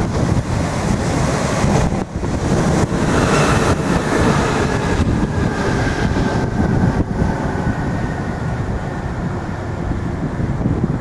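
Irish Rail DART electric multiple unit passing close by, its noise swelling about two to five seconds in, then a faint whine fading away, all under heavy wind buffeting the microphone.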